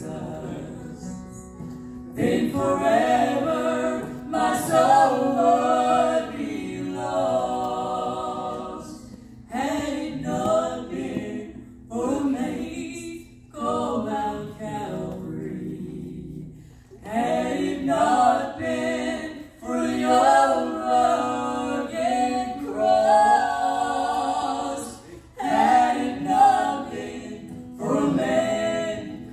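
Gospel trio of two women and a man singing in harmony into microphones, in phrases of a few seconds with short breaks between them.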